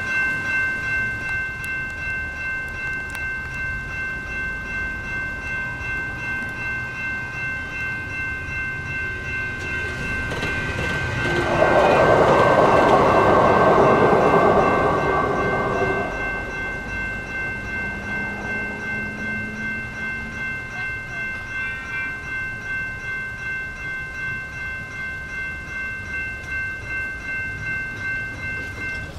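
Railroad crossing signal bells ringing steadily, pulsing about twice a second. About eleven seconds in, a light rail train passing over the crossing adds a louder rush of noise for about five seconds, then it fades.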